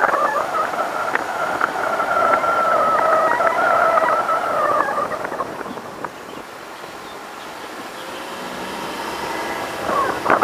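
Car driving, heard from outside on the hood: road and wind noise with a steady wavering whine in the first half. After about five seconds it drops quieter, then slowly builds again.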